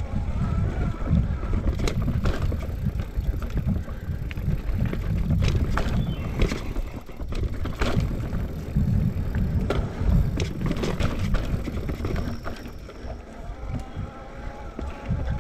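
Electric mountain bike riding a dirt forest trail, heard from a handlebar-mounted camera: a heavy low rumble of wind and trail vibration on the microphone, with tyre noise over the dirt and frequent sharp knocks and rattles from bumps. It gets quieter about two-thirds of the way through.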